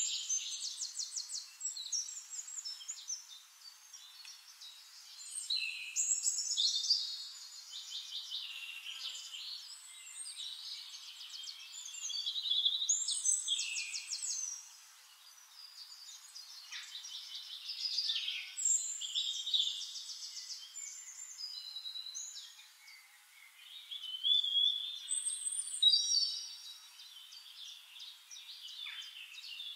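Small songbirds singing: bouts of high chirps, short glides and rapid trills that swell about every six seconds and fade between.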